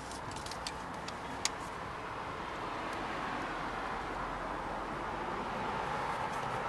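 A few light clicks of plastic door trim being handled and fitted, the sharpest about a second and a half in, over a steady hiss that slowly grows louder.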